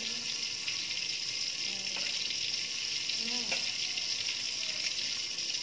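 Tomatoes frying in oil in a lidded wok, a steady sizzling hiss with a few small crackles.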